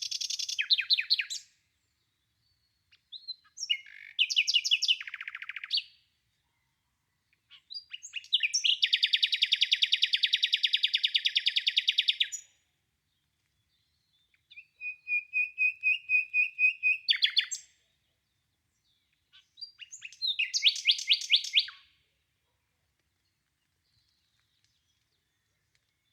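Nightingale singing in five separate phrases with pauses between them. The middle phrase, about four seconds long, is a fast, even run of repeated notes. A later phrase holds a steady, pulsing whistled note before ending in a quick flourish.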